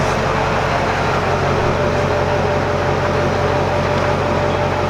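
Steady mechanical drone of a running machine, a low hum with a thin steady whine joining about two seconds in.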